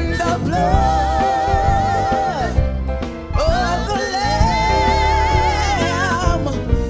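A gospel hymn sung with instrumental backing. The voice holds two long notes with vibrato, about a second apart, over a steady bass.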